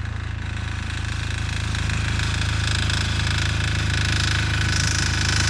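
Small air-cooled single-cylinder diesel engine of about 6 hp running steadily with a rapid, even clatter, getting slightly louder.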